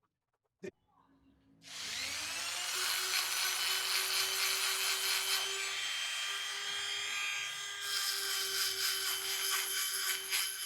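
Small high-speed electric rotary tool spinning up a little under two seconds in, then running at a steady whine while it grinds against the motor's magnets. It stops abruptly at the end.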